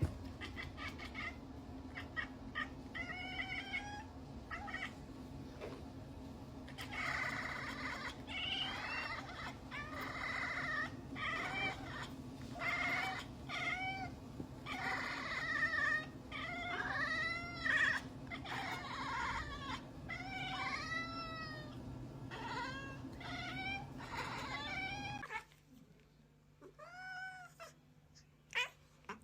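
Cat meowing over and over, a long run of short meows that rise and fall in pitch. A steady low hum behind them stops suddenly about 25 seconds in, and a few more meows follow.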